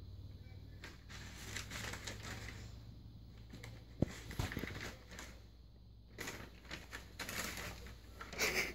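A cat rummaging with its head inside a McDonald's paper bag: the paper rustles and crinkles in irregular bursts, with a couple of soft knocks about four seconds in.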